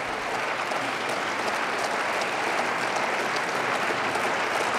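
Members of parliament applauding: dense, steady clapping.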